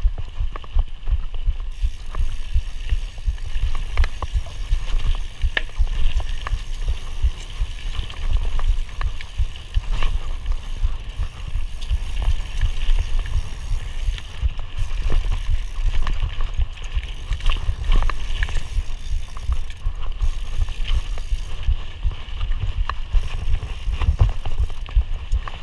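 Mountain bike ridden along a dirt singletrack trail: a steady low rumble of tyres and motion, with irregular sharp clicks and rattles from the bike over bumps.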